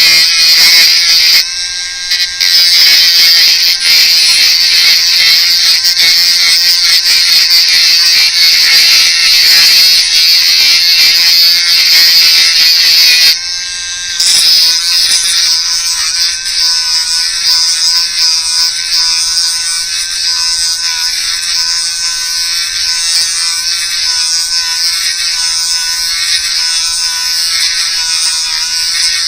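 Small high-speed rotary tool sanding and grinding away the plastic of a fishing lure, a steady high-pitched whine. It dips briefly twice, about two seconds in and again about thirteen seconds in, and its pitch wavers slightly in the later part.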